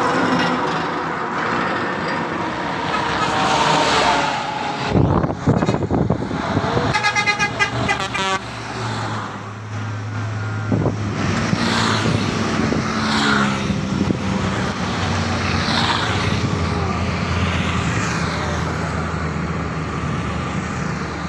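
Heavy road traffic passing close by: a truck and an intercity bus go past with engine and tyre noise, and horns sound, including a rapid string of short horn toots about seven seconds in.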